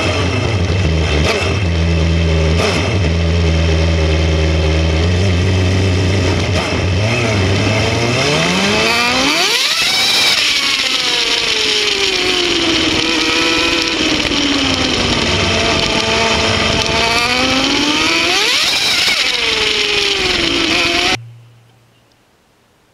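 Suzuki GSX-R750 inline-four sport bike engine and exhaust, heard from close to the muffler while riding. The engine holds a steady low note, revs up sharply about nine seconds in, eases off and climbs again, then the sound cuts off abruptly near the end.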